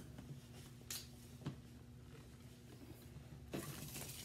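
Paper plate pushed sliding across a tabletop near the end, a brief scraping rush, after a couple of faint clicks over a low room hum.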